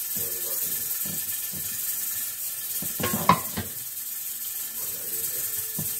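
Soft scraping of a silicone spatula spreading ketchup over meatloaf in a glass loaf pan, with a short clatter of kitchenware about three seconds in, over a steady hiss.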